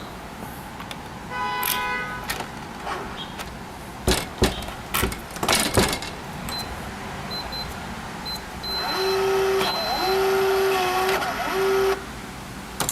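Schlage touchscreen keypad deadbolt being operated: a short electronic beep about a second in, then sharp clicks and knocks around four to six seconds, then about three seconds of a pitched whirring hum with slight wavers, the motorized bolt throwing to the locked position.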